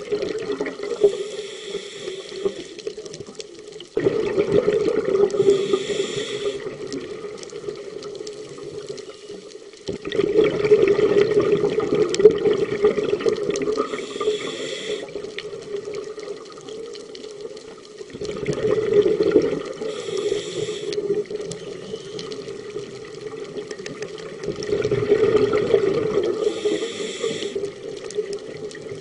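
A scuba diver breathing through a regulator underwater. Each inhale is a short hiss, and a longer burst of exhaled bubbles follows, in a steady cycle of about four breaths, one every six seconds or so.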